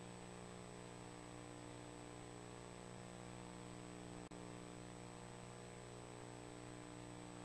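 Steady electrical hum with hiss and a faint thin high whine, the background noise of the microphone and sound system with nothing else sounding. There is one brief glitch a little past halfway.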